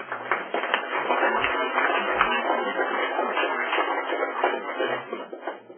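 Audience applauding, many hands clapping at once; it starts abruptly and dies away near the end.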